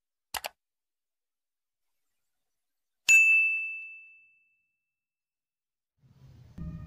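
Subscribe-button animation sound effects: a quick double mouse click, then about three seconds later a single high bell ding that rings out for just over a second.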